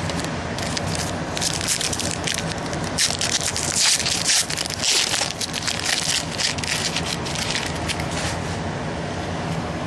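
Foil wrapper of a 2011 Prestige football card pack crinkling and crackling as it is torn open, a dense run of crackles that swells in the middle and dies away near the end.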